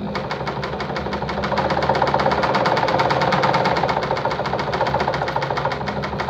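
Juki DIA Rotary 7 sewing machine running steadily at speed to wind a bobbin, with a rapid, even ticking from the mechanism.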